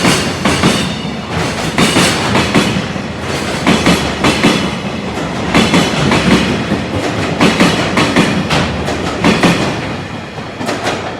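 Freight train's container wagons rolling past over rail joints: loud clacks in pairs as each bogie's wheels cross the joint, over a steady rumble of wheels on rail. It gets quieter near the end.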